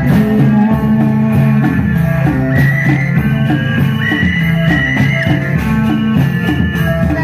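Loud music accompanying a reog dance performance: held notes and a high melody line over a steady beat, with a plucked-string sound.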